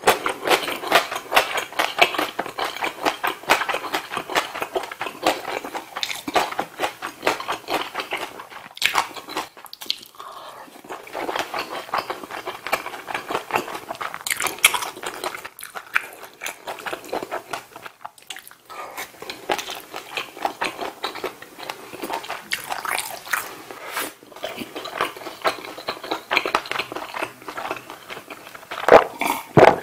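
Close-miked chewing of a mouthful of ramen noodles from budae-jjigae: wet, clicky mouth sounds that go on steadily with a few brief pauses.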